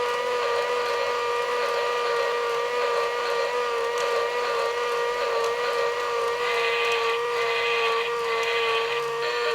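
Battery-powered Thomas Bump n Go bubble train toy running, its small electric motor giving a steady whine. A rougher rattle joins in for a couple of seconds past the middle.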